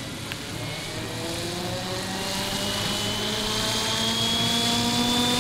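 RC scale helicopter spooling up on the ground: a motor and rotor whine rising steadily in pitch and growing louder as the rotor gathers speed.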